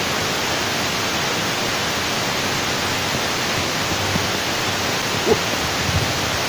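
Steady, even rushing of water, like water pouring over a dam, holding at one level throughout.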